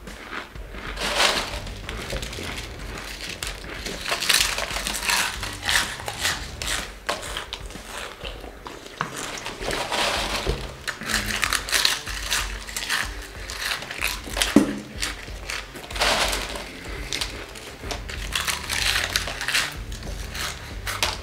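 Doritos tortilla chips crunched and chewed fast by mouth, with hands rustling through the pile of chips in a metal tray: a dense, irregular run of crunches.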